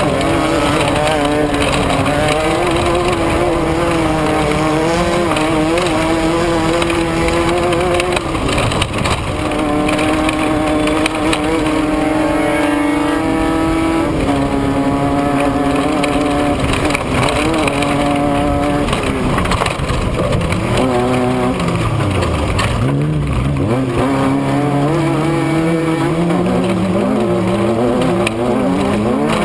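Off-road race vehicle's engine running hard, its pitch climbing and falling again and again with throttle and gear changes. Revs drop steeply and climb back up about two-thirds of the way through.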